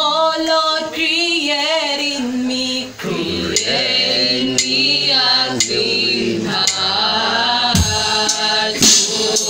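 A small group of women's and men's voices singing a gospel song together, the voices wavering with vibrato, with deeper voices joining about three seconds in and a few sharp percussion strikes.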